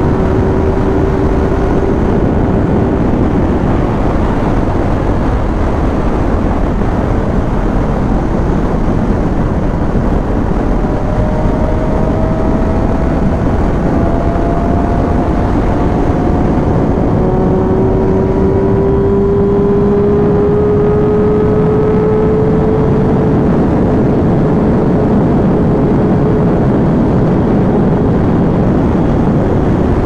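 Kawasaki Ninja ZX-6R's inline-four engine running at Autobahn speed under a loud, steady rush of wind. Its note climbs slowly twice as the bike picks up speed.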